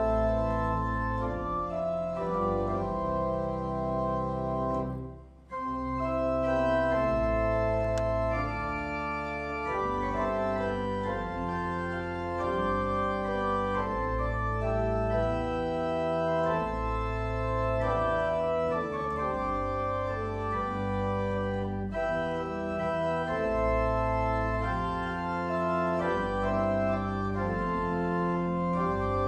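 Organ playing a hymn in slow, held chords, with a brief break about five seconds in.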